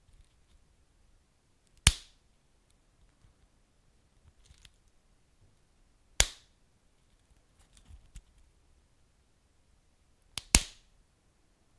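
Wood fire crackling in a fireplace: three sharp pops about four seconds apart, the last a quick double, with faint small crackles between.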